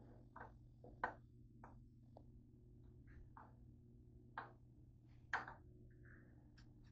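Near silence broken by about nine faint, scattered clicks and light knocks, the loudest about a second in and again about five seconds in.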